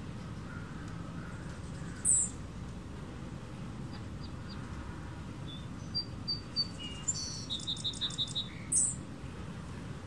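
Hummingbirds calling with short, very high chips: a loud squeak about two seconds in and another near the end, with a quick run of rapid chips in between. A steady low rumble lies underneath.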